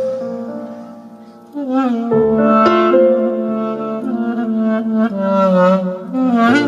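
Music: a slow, wavering melody that sounds like a wind instrument, over a sustained low note. It fades briefly, then comes back louder about a second and a half in.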